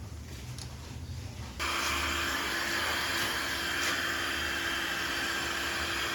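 A machine starts suddenly about a second and a half in and runs with a steady hiss and whir, holding one even pitch, until it cuts off abruptly at the end.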